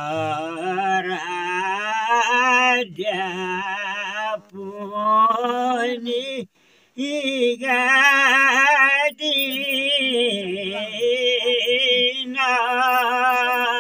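Elderly men singing a traditional Nepali village song unaccompanied, in long drawn-out phrases with a wavering pitch, breaking off for breath every few seconds.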